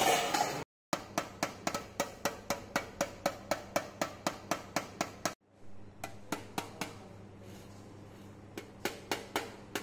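Wooden mallet striking a brass plate laid on a wooden block, in quick, even blows of about three a second, each with a short metallic ring. The blows break off briefly a few times and then resume.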